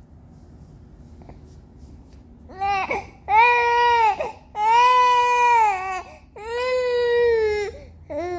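A baby crying out: quiet at first, then a short cry about two and a half seconds in, followed by three long drawn-out wails of a second or more each, and a brief cry near the end.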